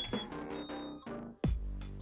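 Background music with a steady beat and bass.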